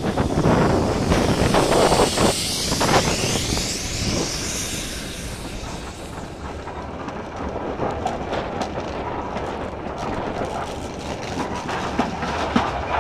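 Passenger train running on a steam heritage line, heard from an open carriage window: wheels rumbling and clicking over the rail joints. A loud rushing hiss in the first few seconds fades, and the clicking becomes clearer in the second half.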